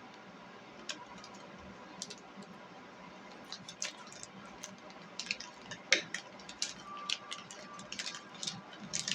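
Snack packaging being opened by hand: the wrapper crinkles and crackles, with a few separate crackles at first and a dense run of them from about three and a half seconds in, loudest near six seconds.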